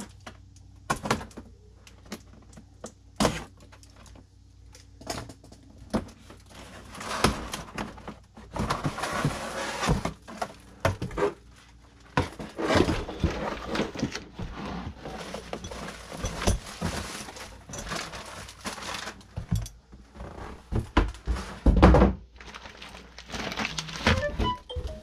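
Packaging being handled while an RC car is unboxed: scattered knocks and thunks, then longer stretches of cardboard and plastic scraping and rustling, with a heavier thump a little before the end.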